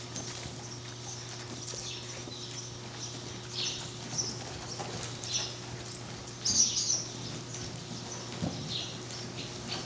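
Irregular scrapes and taps from a horse's hooves shifting on a hard floor, a few seconds apart, over a steady low electrical hum.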